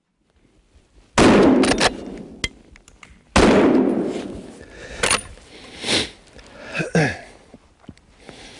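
Two hunting rifle shots about two seconds apart, each a loud crack followed by a long echo through the snowy forest. Quieter clicks and rustles follow.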